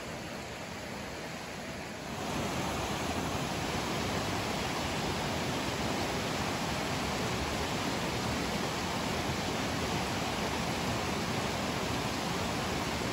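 Steady rushing of flowing creek water, becoming louder about two seconds in.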